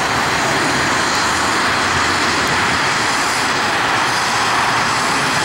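Jet engines of a Boeing 737-800 (CFM56-7B turbofans) at climb thrust just after takeoff: a steady, unbroken rush of jet noise at even loudness.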